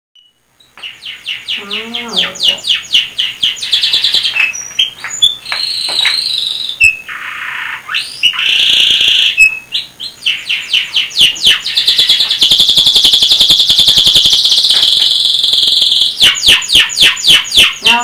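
Domestic canary singing loudly in a long song of fast repeated trills and rolls, with a harsher, buzzy stretch about halfway through and a long, even trill later on.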